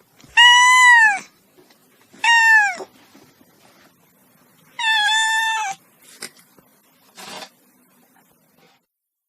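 A cat meowing three times, each meow under a second long and falling in pitch at its end; the last is held a little longer and flatter.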